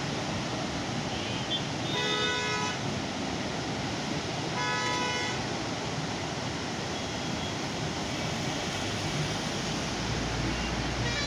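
Steady roar of floodwater pouring through the open crest gates of a large dam spillway and crashing into the plunge pool below. A vehicle horn honks twice over it, about two seconds in and again about four and a half seconds in.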